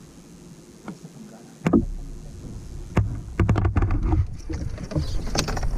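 Knocks and clatters against a wooden canoe as a caught fish is brought aboard and handled. A single sharp knock comes under two seconds in, over a low rumble. A quick run of knocks and clicks fills the last couple of seconds.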